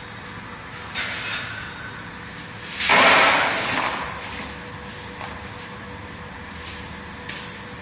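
Green vegetable pieces tipped from a stainless steel basket into a plastic tub, making a loud rushing rattle of about a second that fades away, after a metal knock about a second in and before a few light clicks. Under it runs a steady machine hum with a faint held tone.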